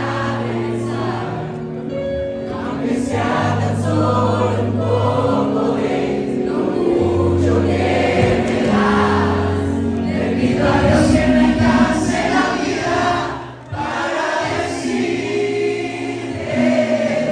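Live ballad: an audience singing along together over piano-voiced chords and sustained bass notes from a Yamaha Motif XF8 keyboard. The music dips briefly about three-quarters of the way through.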